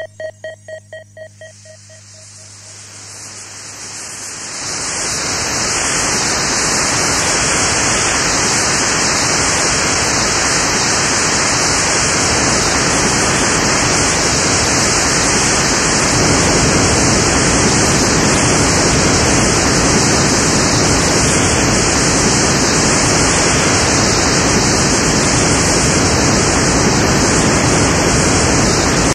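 Loud steady hiss of radio-like static, swelling in over the first few seconds while a quick run of electronic beeps dies away, then cutting off suddenly.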